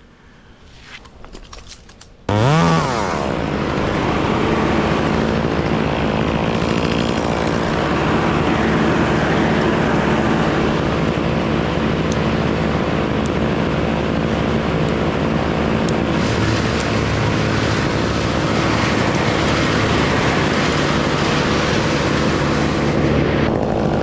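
Chainsaw starting about two seconds in with a quick rising rev, then running steadily.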